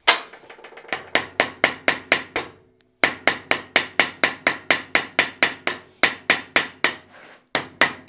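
Hand hammer peening over a rivet on a small steel latch part clamped in a bench vise: a run of sharp, ringing metal strikes, about four a second, with two brief pauses.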